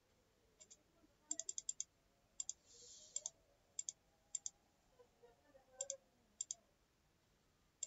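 Faint, scattered sharp clicks of a computer keyboard and mouse, with a quick run of five or six clicks about a second and a half in and a brief soft hiss around three seconds.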